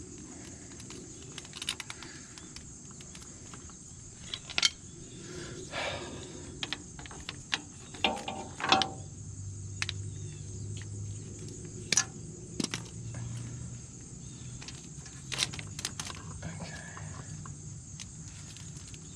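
Scattered metallic clicks, taps and clinks of hand tools and parts on a tractor's brake linkage, irregular and spread through the stretch. A steady high insect drone runs underneath.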